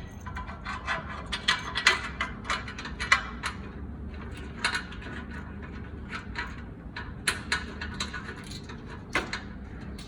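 A bolt being screwed into the bottom of a gym leg press attachment: runs of quick metallic clicks, thickest in the first few seconds and then more scattered.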